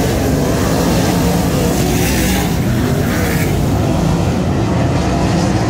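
Sprintcars' V8 engines racing on a dirt oval, several cars running at once in a loud, steady din.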